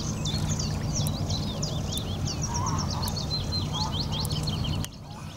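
Small birds singing in a fast, continuous run of chirps and trills, over a steady low rumble that drops away sharply near the end.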